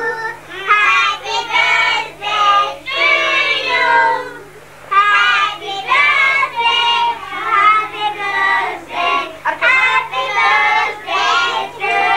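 Children singing a song in high voices, phrase after phrase with short breaks between lines.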